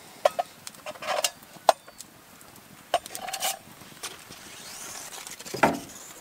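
Metal camping pot and its lid knocked and clinked with a stick and gloved hands: a series of sharp clicks and short clanks, some ringing briefly, the loudest a knock near the end.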